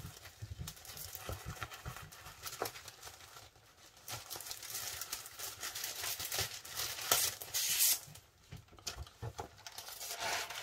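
Clear plastic bags and a paper decal sheet crinkling and rustling as the sheet is worked out from beneath bagged plastic sprues in a cardboard model kit box, with a louder burst of rustling about seven seconds in.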